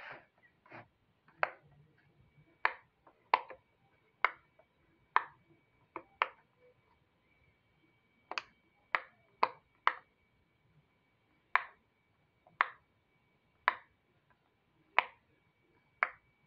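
Silicone push-pop fidget toy being pressed, its bubbles popping one at a time in sharp little pops, roughly one a second and unevenly spaced.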